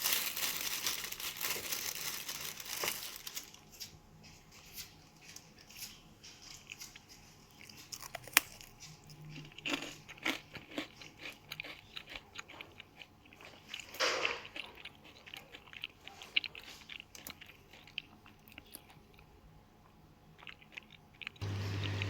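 Crunching and chewing of crispy fried fritters close to the microphone, densest for the first few seconds, then scattered crunches and small clicks. A low steady hum comes in near the end.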